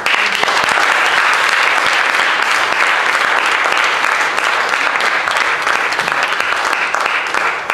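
Church congregation applauding: dense clapping that starts abruptly and holds steady for several seconds.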